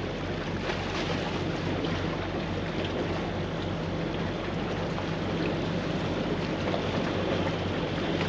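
Steady wind noise and water washing against the jetty rocks, under the low steady drone of a boat engine out in the pass.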